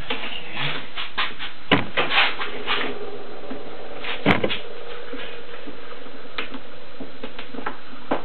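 Wooden window frame and glass pane being pushed and shifted by hand: a string of irregular light knocks, taps and scrapes of wood against glass, the sharpest about two seconds in and again about four seconds in. The pane is catching on a lip in the frame as it is worked into place.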